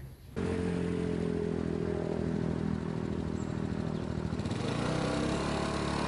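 Small motor scooter engine running steadily as the scooter rides away down the road, its note thinning slightly about four seconds in.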